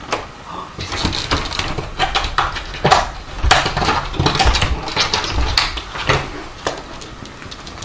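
A cat flap in a door clattering and knocking as a cat forces its way through and tumbles out, the flap banging back and forth. The knocks come in an irregular run and thin out near the end.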